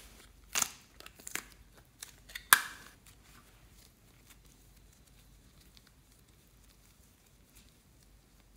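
Handling of a plastic toy compact case as soft modelling clay is pulled out of it: a few sharp clicks in the first three seconds, the loudest about two and a half seconds in, then only faint soft handling of the clay.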